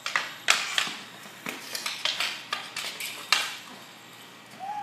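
Street hockey sticks clacking against each other and scraping on a concrete driveway as two players fight for the ball: a rapid, irregular run of sharp clacks, loudest about half a second in and again past three seconds.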